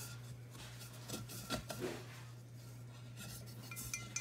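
Faint scraping and light clicking of a glass light globe being handled and worked loose from a ceiling fan's light fixture, over a steady low electrical hum. Near the end comes a run of quick, even ticks, about five a second.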